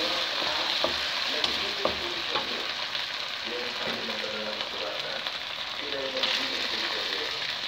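Meat pieces sizzling in hot oil in a nonstick wok, stirred with a wooden spatula that clicks and scrapes against the pan. About six seconds in, mixed vegetables (corn, peas, carrots) are tipped in and the sizzle briefly gets louder.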